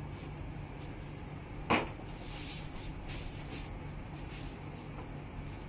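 Handling noise in a small shop: one sharp knock about 1.7 seconds in, then light rustling, over a steady low hum.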